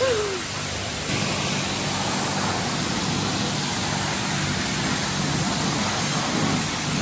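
Self-serve car wash pressure wand spraying soapy water onto a car: a steady hissing spray with a low pump hum under it, a little louder from about a second in.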